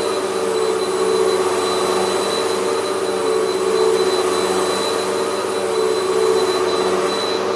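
Hoover WindTunnel MAX upright vacuum cleaner running steadily, its motor and aggressive brush roll working through carpet, with a constant hum and a thin high whine. The level swells and eases about every second or so as the vacuum is pushed back and forth over the carpet.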